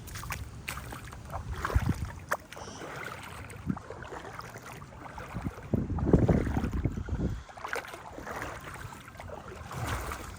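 Wind buffeting the microphone in irregular gusts, loudest about six seconds in, with a few short knocks.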